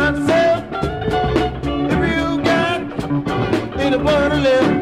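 Recorded upbeat band music: a steady drum beat under pitched instruments, with a singing voice.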